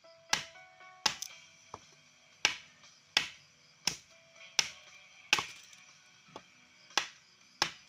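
Regular sharp chopping strikes on wood, about one every three-quarters of a second, each with a short ring, as a paddle is shaped by hand.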